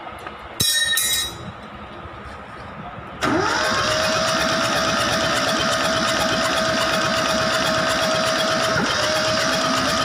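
Starter motor cranking a Kubota D950 three-cylinder diesel engine: a steady whine over rapid, even chugging of compression strokes, starting about three seconds in, with a brief break near the end before cranking resumes. The engine turns over without catching, as it would with no fuel being injected. A short, loud burst of sound comes about half a second in.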